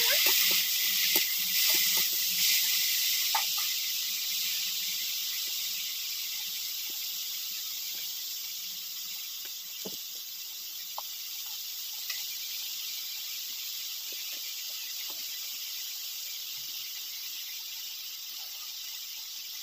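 Chopped vegetables (greens, potato, eggplant) sizzling in hot oil in a large metal kadai: a steady high hiss that slowly dies down, with a few faint clicks.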